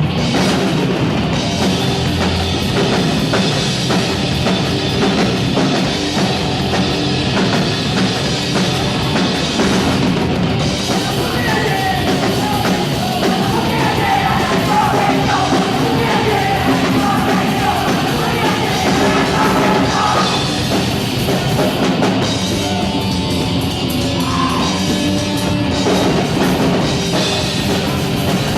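Punk rock band playing a loud song, with a drum kit and singing.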